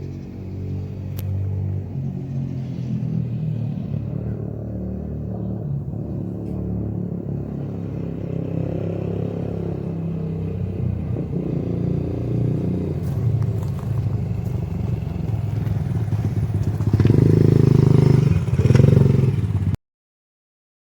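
Yamaha Raptor 80 quad's small four-stroke single-cylinder engine running as the quad is ridden, its pitch rising and falling with the throttle and getting louder near the end. The sound cuts off suddenly just before the end.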